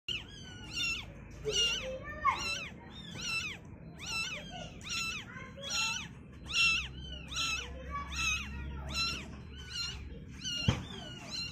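Newborn calico kitten mewing over and over: short, high, thin mews about two a second. A sharp click sounds near the end.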